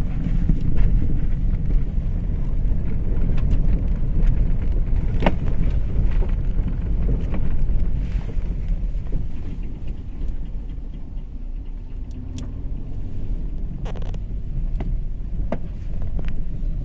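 Toyota RAV4 on the move: a steady low road rumble, with a few sharp clicks.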